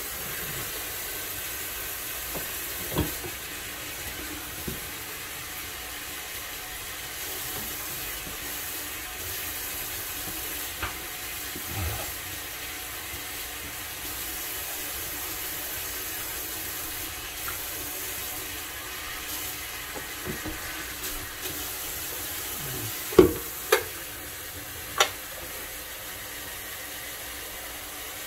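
Kitchen faucet running steadily into a pot of raw neck bones as they are rinsed under the tap. A few sharp knocks of the pot against the sink are heard, the loudest two in quick succession near the end.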